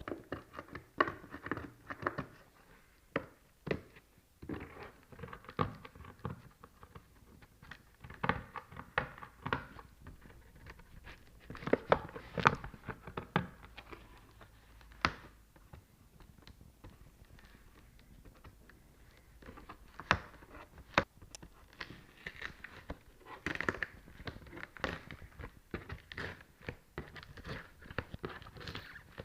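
A shoebox being opened and unpacked by hand: scattered knocks and taps on cardboard with stretches of paper crinkling and rustling.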